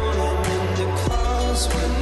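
Background music: a pop/R&B-style song with a steady beat and bass.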